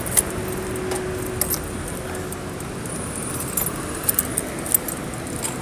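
A few short, sharp clicks and light metallic jingles, scattered and mostly bunched in the second half, over a steady background noise of distant traffic.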